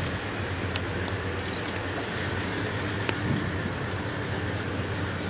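Diesel freight locomotives, a pair of GE C40-8s, running at a distance. Their engines make a steady low drone.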